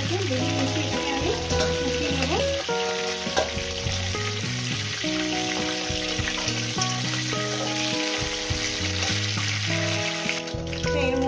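Fish heads sizzling as they fry in hot oil in a steel kadai, with a metal spatula scraping and turning them. Background music with held keyboard-like notes plays over the frying.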